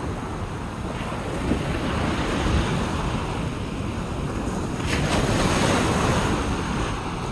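Ocean waves washing onto a beach, with sea breeze buffeting the microphone; a wave breaks and its wash grows louder about five seconds in.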